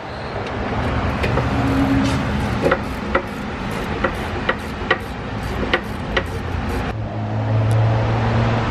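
Hand ratchet clicking in short strokes as a rear brake caliper bolt is run out: about ten sharp clicks, roughly two a second, over steady shop background noise. A low steady hum comes in near the end.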